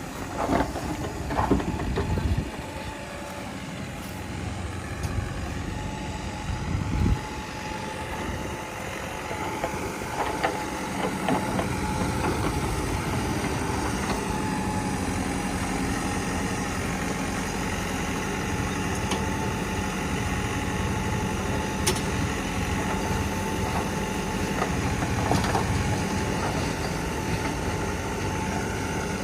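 Diesel engine of heavy machinery running steadily, with a few sharp knocks in the first seconds.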